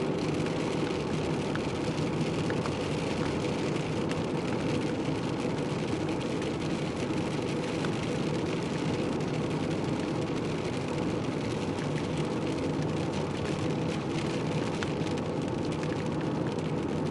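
Steady hum of a vehicle's engine and cabin heard from inside, with raindrops tapping on the windshield and roof.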